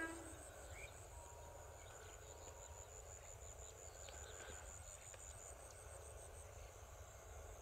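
A distant electric multiple-unit train's horn cuts off right at the start. Then comes faint open-air quiet: a low rumble and a thin, high, pulsing insect trill.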